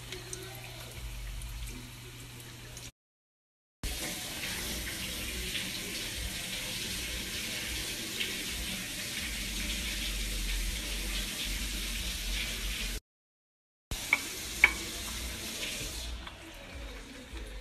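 Hot oil sizzling steadily in a frying pan around a breaded chicken breast. The sound cuts off abruptly twice into brief dead silence. Near the end come two sharp clicks.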